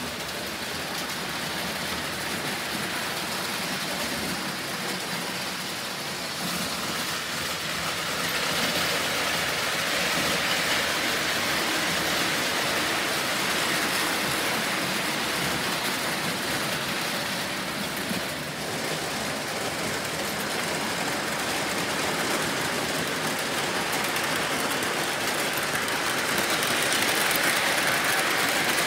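Lionel model freight train running on its track, a steady whir and rattle of motor and wheels that grows louder about a quarter of the way in and again near the end as the train passes close by.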